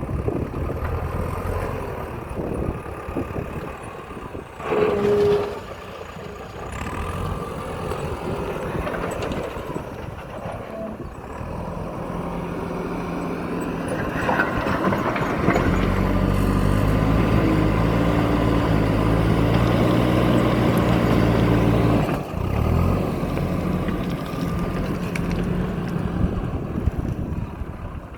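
Diesel engine of a JCB backhoe loader working, revving up louder from about halfway through and then dropping back sharply near the end. About five seconds in there is one brief loud blast.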